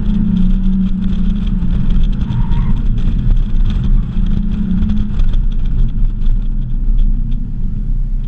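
Mazda Miata's four-cylinder engine running hard on an autocross run, heard from behind the seats with the top down, with wind rumbling on the microphone. The engine note holds strong for about five seconds, then drops back.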